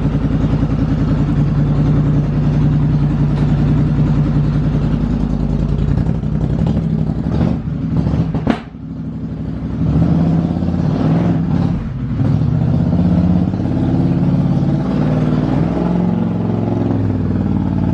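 Polaris Sportsman 850 HighLifter's twin-cylinder engine running through a Big Gun Evo U exhaust with no quiet insert fitted. It runs steadily, drops off briefly about halfway, then revs up and down.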